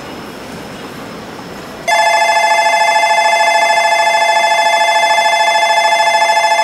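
Low rumble of the approaching Shinkansen, then about two seconds in a loud electronic platform bell cuts in. It rings as a steady, fast-fluttering trill on two tones.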